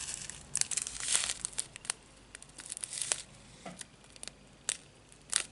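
Small plastic packets of diamond-painting resin drills crinkling as they are handled, in irregular clusters of crackles, busiest in the first second and again about three seconds in.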